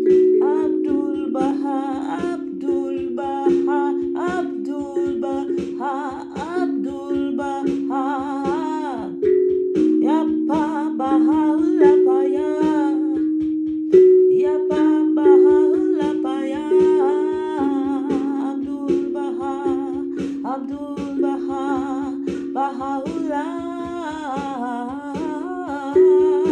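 Steel tongue drum struck with mallets, a slow stream of ringing low notes that overlap and sustain. A woman sings wordlessly over it in a wavering voice.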